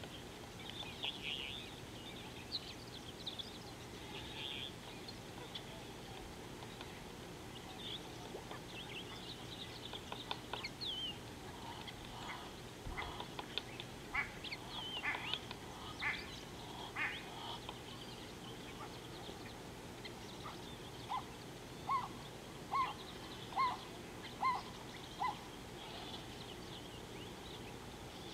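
Wild birds calling: scattered high chirps and trills, then a run of six short, evenly spaced calls in the last third.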